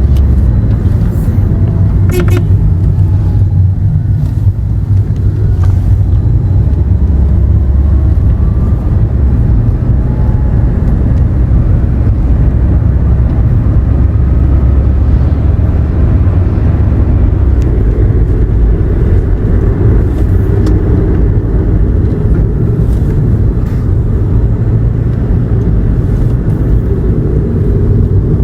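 Toyota Aqua hybrid car driving on the road: a steady, loud low rumble of road and drivetrain noise throughout, with a faint click about two seconds in.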